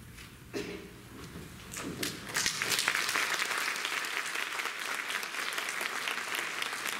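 Audience applauding: a few scattered claps at first, swelling into full, steady applause about two seconds in.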